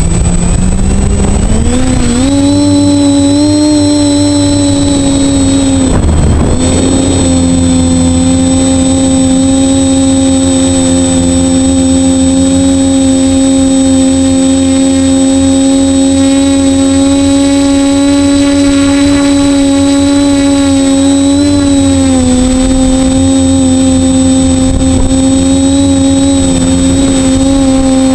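Quadcopter's 2208 brushless motors and propellers, worn out, whining at a steady pitch. The pitch climbs over the first two seconds as the throttle comes up, dips briefly around six seconds in and again near the end, with a constant thin high tone above it.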